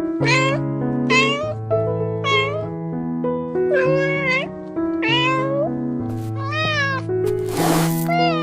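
A cat meowing over and over, about six separate meows, each bending up and down in pitch, over background music of steady held notes. A short breathy, noisy rush comes near the end.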